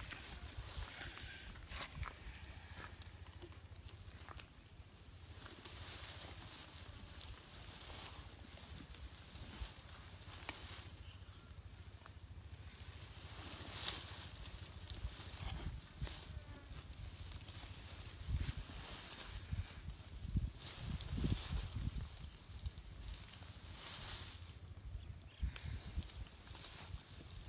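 Steady high-pitched insect chorus. Scattered rustles and a few soft low thuds come about two-thirds of the way through.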